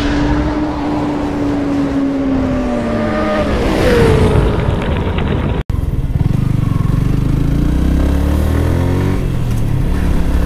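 Intro sound effect of a motorcycle engine, its note sliding slowly down, with a whoosh about four seconds in. After a sudden cut, a Yamaha R15 single-cylinder sport bike runs along at low riding speed, its engine note rising and falling with the throttle.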